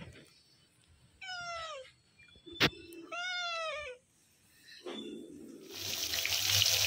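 Young cat meowing twice, two drawn-out meows about two seconds apart, with a single sharp click between them. Near the end, running water starts with a steady hiss.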